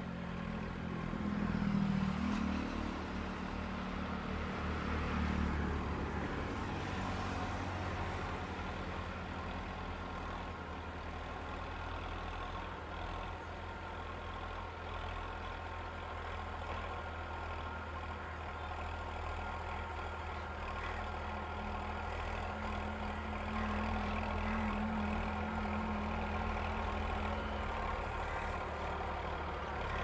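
Farm tractor's engine running under load as it works a dry field, its note shifting in the first few seconds, then steady, and growing a little louder near the end as it comes closer.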